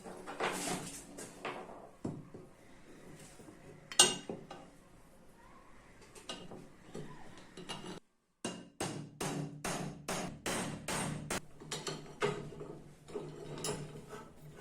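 Hand-tool work on metal parts: a sharp metallic knock about four seconds in, then, after a brief dropout, a quick run of strokes at about four a second, followed by a few scattered clanks.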